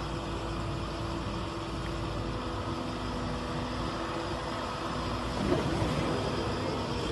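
Atlas 150W wheeled excavator's engine running steadily, with a few held tones over its hum. A little past five seconds in, soil spills from the raised bucket.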